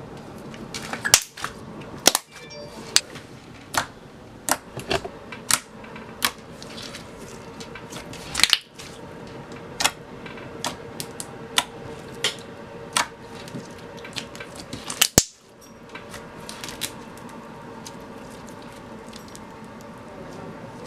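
Thick slime being poked and pressed by hand, giving irregular sharp clicks and pops, about a dozen over some fifteen seconds, then only a few faint ones.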